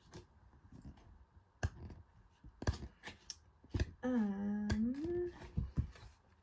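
Scattered light taps and clicks of paper cards and packaging being handled. About four seconds in, a woman hums briefly, holding one note and then sliding up at the end.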